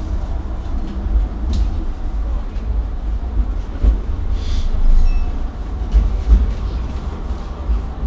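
London Tramlink tram running, heard from inside the passenger car: a steady low rumble with a few light knocks and rattles, and a short hiss about halfway through.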